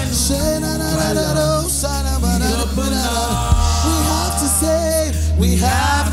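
Worship music: voices singing over held low bass notes, the bass shifting to a new note about halfway through.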